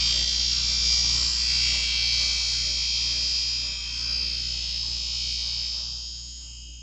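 Bench grinder running with a steady motor hum while a knife edge is held against its waxed wheel, giving a high hiss that fades out near the end; the wheel is taking the burr off the sharpened edge.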